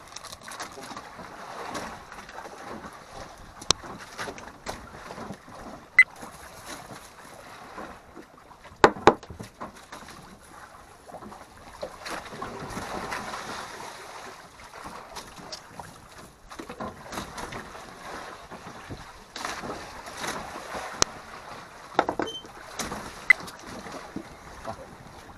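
Wind buffeting the microphone over a steady rush of sea noise on a small boat, with a handful of sharp clinks and knocks from a spoon, pot and lid as fish are seasoned in an aluminium pot; the loudest are two clinks close together about nine seconds in.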